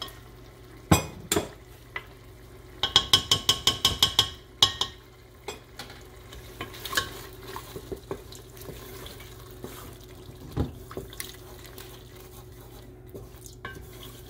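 Wooden spatula stirring and scraping onion-tomato masala frying in oil in an aluminium pressure cooker, knocking against the pot, with a quick run of about ten knocks about three seconds in and scattered single knocks after. A faint sizzle of the frying masala underneath.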